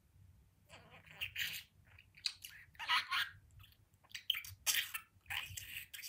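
Pet budgerigar chattering and warbling in a run of short bursts, starting about a second in.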